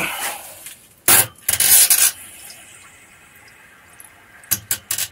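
Water and air hissing out in two short, sharp spurts as a fitting on a pump station is opened just after its pressure has been released, followed near the end by a few short clicks.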